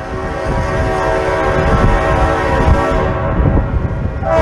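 A train whistle blows a long blast over the heavy rumble of a moving train. The blast fades about three seconds in, and a second, louder blast starts near the end.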